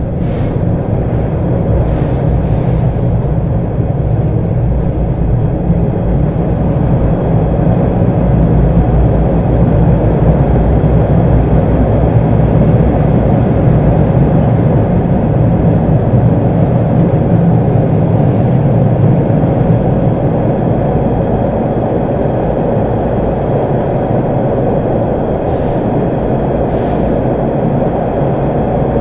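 MBTA Orange Line Hawker Siddeley 01200-series subway car running on the rails: a loud, steady rumble of motors and wheels. It grows louder over roughly the first ten seconds, then holds steady.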